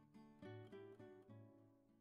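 Quiet acoustic guitar music: a few strummed chords that fade away toward the end.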